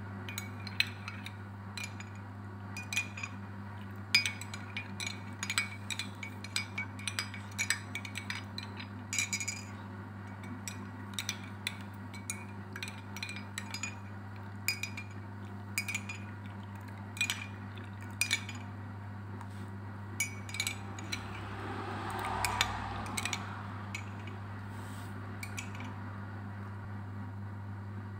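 A spoon clinking against a small glass jar, quick irregular taps while stirring honey into a turmeric and ginger drink, with a brief soft rustle about three-quarters of the way through. A steady low hum runs underneath.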